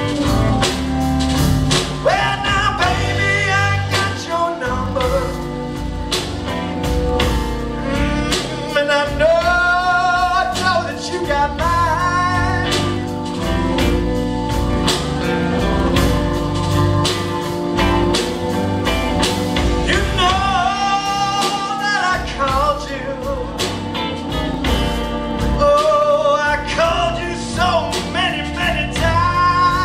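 Live band playing: electric guitar, drums with a steady beat of hits, and saxophone, with a lead vocal out front, in a large room with natural reverb.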